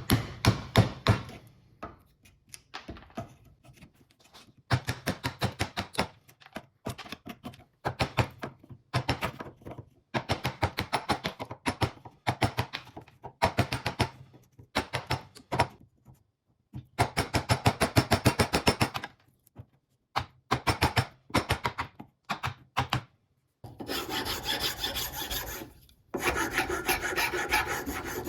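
Hand filing or rasping: quick back-and-forth scraping strokes in runs of a few seconds, broken by short pauses, with a denser, more continuous stretch near the end.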